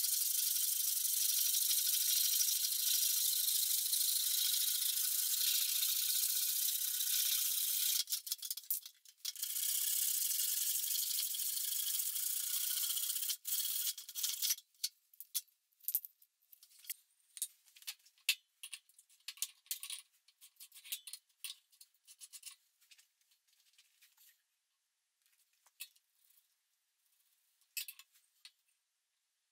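A hand saw cutting through a pine 2x4, a steady high rasping that stops about halfway through. After it come scattered light clicks and taps of wood and tools being handled.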